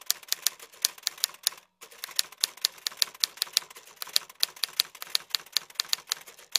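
Typewriter key clicks used as a title sound effect: a quick, uneven run of sharp taps, about five a second, with a brief pause near two seconds in.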